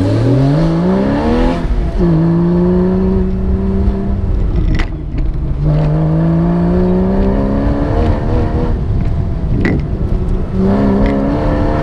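Porsche engine driven hard, its pitch climbing under acceleration, dropping suddenly at an upshift about two seconds in, then climbing again. The note breaks off twice where the throttle is lifted, each time with a sharp click, before rising once more near the end.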